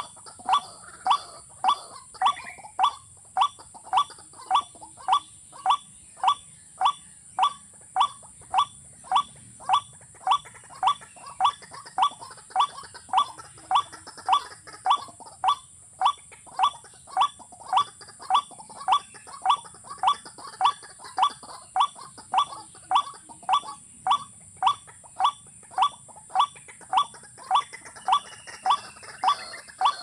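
Recorded watercock call played on a loop from a small speaker as a lure: one short hollow note repeated at a perfectly even pace, nearly twice a second, over a steady high hiss.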